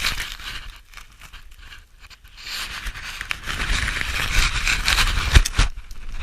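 Scraping, crunching noise in snow in two stretches, a short one at the start and a longer one through the middle, with a couple of dull thumps about five and a half seconds in.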